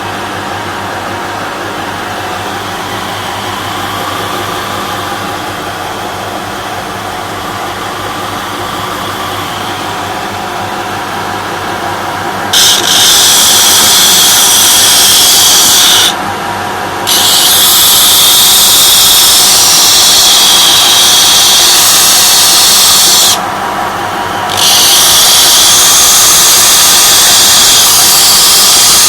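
Homemade belt grinder driven by a 250 W electric motor, running steadily. About twelve seconds in, grinding on the abrasive belt starts with a loud hiss that comes in three long spells with short breaks between.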